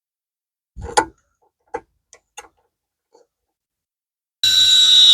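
A few light knocks and clicks of metal parts being handled. About four seconds in, an electric drill starts up with a steady high-pitched whine as it drills a hole in a metal bracket.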